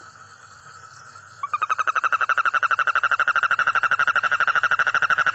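A toad's trill: a fast, even pulsing call held at one steady pitch. It is faint at first and becomes loud and continuous about a second and a half in.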